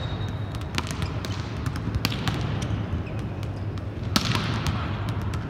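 Volleyballs being spiked and bouncing on the court, a scatter of sharp smacks that echo through a large hall, the loudest about four seconds in, over a steady low hum.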